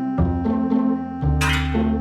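Background music: bright pitched notes over a bass line that changes note about every half second, with a short swooshing sound effect about a second and a half in.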